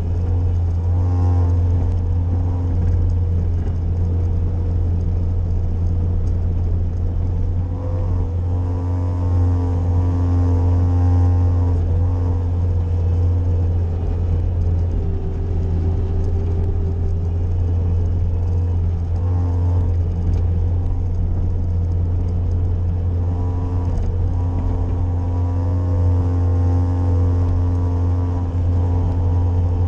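Bobcat skid-steer loader engine running steadily while plowing snow, with a higher tone that comes and goes several times as the machine works.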